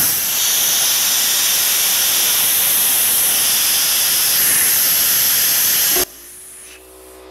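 Compressed air hissing loudly from an air-line nozzle as a fishing buoy is inflated, starting abruptly and cutting off suddenly about six seconds in. A steady machine hum, the air compressor, carries on after it.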